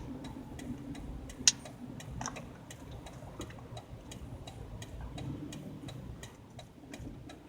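2002 Ford Explorer rolling slowly, inside the cabin: a quick, regular ticking from a rear wheel, about three to four clicks a second, keeping time with each turn of the tire, over the low hum of the road and engine. The rear wheel bearings are new, so the noise is not from them; the driver suspects a broken piece of the rear brake hardware.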